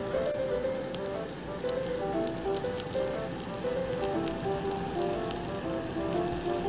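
Beef rib-finger meat (galbisal) sizzling on a wire-mesh grill over hardwood charcoal, with now and then a sharp crackle. Background music with a light melody of short notes plays over it.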